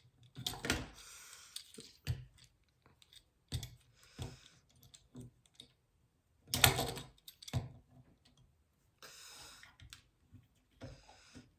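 Hard plastic Transformers action figures and their blaster accessories being handled and posed: irregular clicks and clacks of plastic parts, with a few short rustles.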